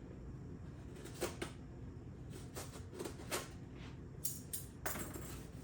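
Packaging being handled during an unboxing: scattered light clicks and knocks, with a short burst of rustling near the end.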